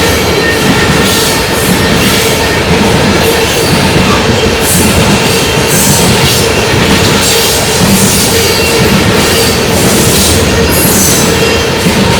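Freight train rolling past close by: a loud, steady rumble and clatter of wheels on rail, with a thin steady squeal running through it.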